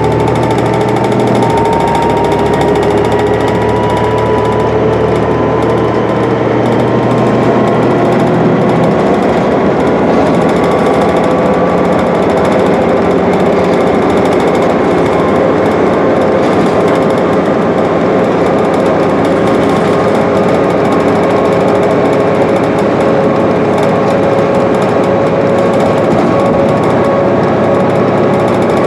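Cabin noise of a New Flyer D60LFR articulated bus at freeway speed: its Cummins ISL 8.9 L straight-six diesel and Allison automatic transmission running steadily under load, mixed with road and tyre noise. A whine in the drivetrain rises slowly in pitch as the bus gathers speed.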